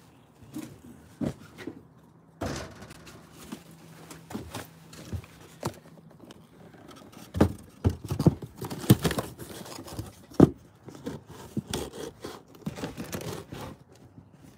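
Close handling of the recording phone as it is picked up and repositioned: scraping, clothing rustle and a scattered run of knocks and clicks, busiest and loudest around the middle.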